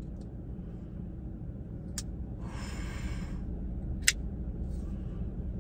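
Pena X-Series Bravo liner-lock folding knife being flicked and handled: two sharp clicks about two seconds apart, the second louder, with a brief soft rustle between them, over a steady low hum.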